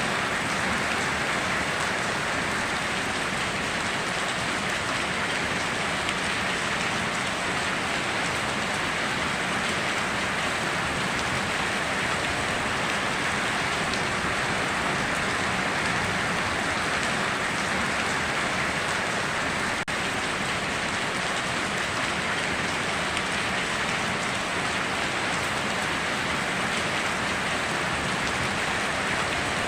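Steady rain falling, a dense even hiss of drops on surfaces with no thunder, with one momentary dip about two-thirds of the way through.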